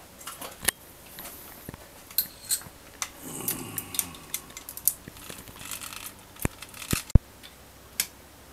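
Metal engine parts and hand tools clicking and clinking as a motorcycle engine is assembled, in scattered short knocks with a noisier stretch about three seconds in. The sharpest, loudest click comes about seven seconds in.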